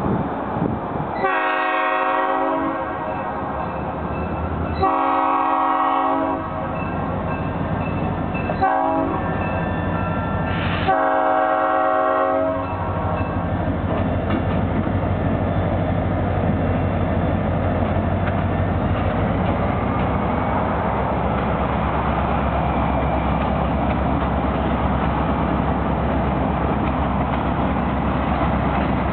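Nathan P5 air horn on an EMD GP40 diesel locomotive sounding the grade-crossing signal: two long blasts, a short one, then a long one. Then the locomotive's diesel engine runs steadily as the freight train rolls by, with the rumble of the cars on the rails.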